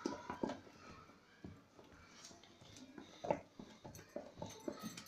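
A metal spoon beating thick cream by hand in a steel bowl: faint, irregular scrapes and knocks of the spoon against the bowl, with a louder knock a little after three seconds in. The cream has stiffened almost to butter, so each stroke drags.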